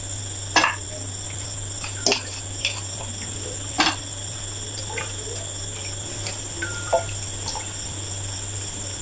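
Wooden spoon pressing and knocking against a steel mesh strainer of spices held over a pot, with broth trickling through into the pot: several sharp knocks, the clearest about half a second, two seconds and four seconds in. A steady hum runs underneath.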